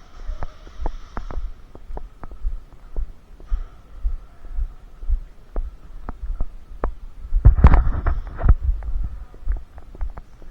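A player's footsteps thumping on a body-worn camera's microphone, about two to three a second, each with a light click. Seven to eight seconds in comes a dense cluster of sharp snaps, louder than the footfalls.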